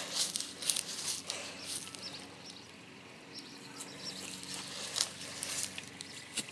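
Footsteps and rustling on a grass lawn with scattered light clicks and handling noise, over a faint steady hum.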